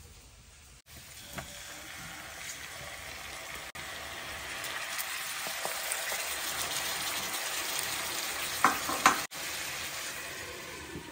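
Pork pieces frying in oil in a wok, a steady sizzle that starts about a second in and grows louder, with tomatoes being stirred in. Two sharp knocks a little before the end.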